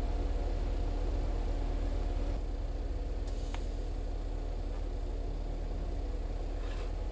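Steady low electrical hum of a TIG welding setup while a tack weld is laid on a steel spindle gusset, with a single light tick about three and a half seconds in.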